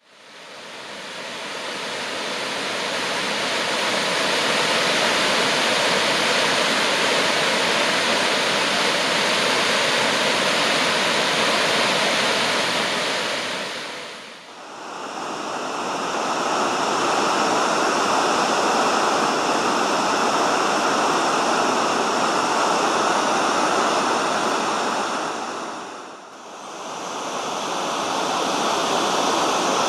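Steady rushing noise like flowing water. It fades in at the start, dips out and returns about halfway through, and does so again near the end.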